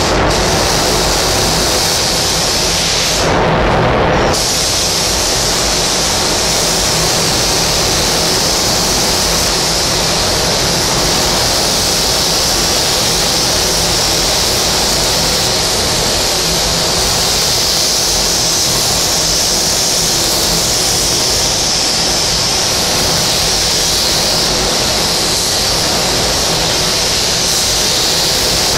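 Gravity-feed paint spray gun on compressed air hissing steadily as it sprays paint onto a car's body panel; the high hiss drops out briefly about three seconds in.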